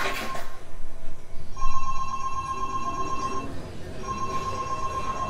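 A telephone ringing: two long rings of about two seconds each, with a short gap between them. They start after the orchestral music breaks off about half a second in.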